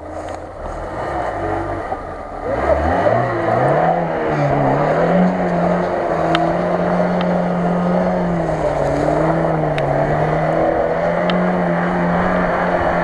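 Lada Niva (VAZ 21214) four-cylinder engine running low for the first couple of seconds, then revving up sharply and held at high revs, rising and falling, as the car spins tight circles through grass and mud.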